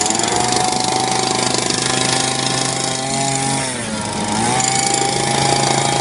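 BOKE BK95A gasoline jackhammer running at high revs with its engine note over the noise of the breaker. A little past halfway the engine speed sags briefly, then climbs back up.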